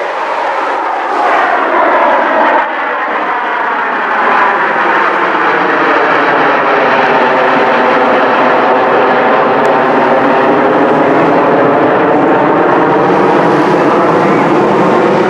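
Northrop B-2 stealth bomber's four turbofan jet engines in a low flyover: a steady jet roar that grows louder about a second in and holds, with a swirling, phasing sweep running through it as the aircraft passes.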